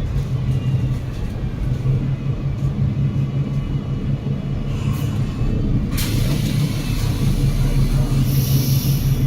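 Double-decker bus running under way, heard from on board: the Cummins L9 diesel engine and Voith automatic drivetrain give a steady low drone, with a sharp knock about six seconds in and a short high hiss near the end.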